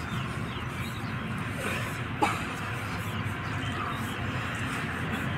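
Steady outdoor background noise, with one sharp knock a little past two seconds in.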